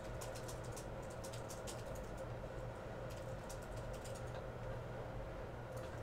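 Light ticks and rustles of trading-card packs and cards being handled, most frequent in the first two seconds, over a steady low hum.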